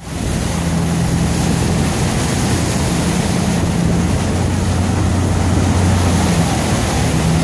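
Ford F-250 turbo-diesel pickup's engine running steadily under load as the truck ploughs through deep floodwater, with a continuous rush of water spraying off its side.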